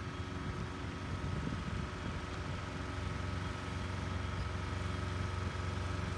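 An engine running steadily at a constant speed, with an even hiss over it and a thin steady whine.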